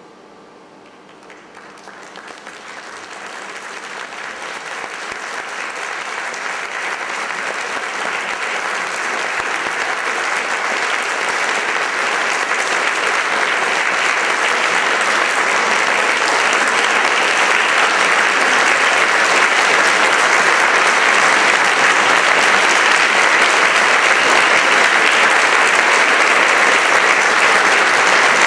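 Audience applause that starts about a second and a half in and swells steadily, then holds at full strength.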